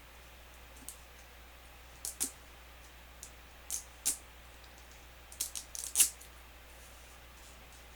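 Scattered sharp clicks and crinkles of a plastic mini-kit capsule ball and its wrapping being handled and unwrapped, in irregular clusters with the loudest near the end.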